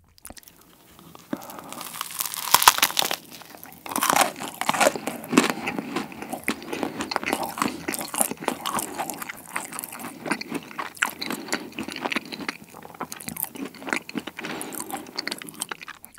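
Close-miked biting and chewing of a pretzel-topped macaron. Sharp crunches of the shell about two and a half seconds in and again around four to five seconds, then steady chewing with small crisp crackles.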